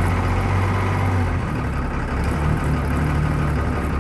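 1996 Blue Bird bus's diesel engine running steadily a little above idle just after a cold start, its speed shifting slightly as the throttle pedal is worked.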